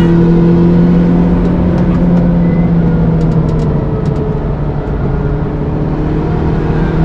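Turbocharged Toyota Starlet Glanza V's 1.3-litre four-cylinder engine pulling hard under load, its steady engine note easing briefly about five seconds in and then picking up again.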